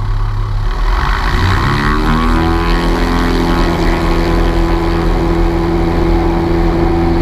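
Cessna 182P's six-cylinder Continental O-470 piston engine and propeller running, rising in pitch over about two seconds as the throttle is opened, then holding a steady drone.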